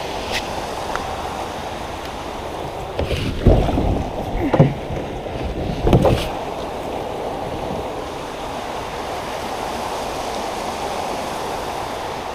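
Steady rush of creek water by a small waterfall, with a few knocks and thumps about a third to halfway through.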